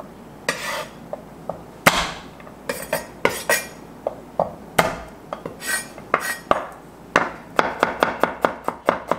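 Garlic being handled and chopped with a kitchen knife on a board. First come scattered knocks and scrapes, then about two-thirds of the way in a fast, even chopping starts at about five strokes a second.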